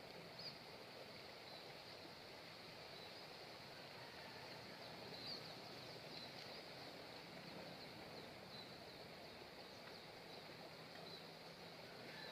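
Faint outdoor ambience: a steady high-pitched hum with small scattered chirps, such as from birds or insects.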